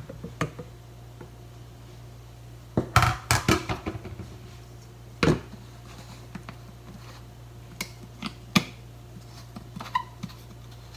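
Light plastic clicks and knocks as a plastic squeeze bottle is handled and its nozzle cap fitted and screwed on: a quick cluster of clicks about three seconds in, a single knock a couple of seconds later, then a few separate small clicks.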